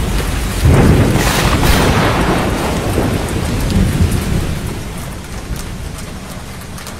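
Thunderstorm: a loud roll of thunder about a second in over steady rain, then fading as the rain goes on.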